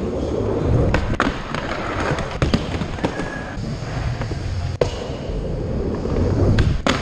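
Skateboard wheels rolling back and forth on a mini-ramp, a rumble that swells with each pass through the transition, broken by a few sharp clacks of the board and trucks against the ramp and coping.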